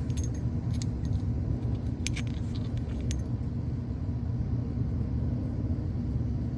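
Small metallic clinks as removed spark plugs are handled and knock together, several in the first three seconds, over a steady low rumble.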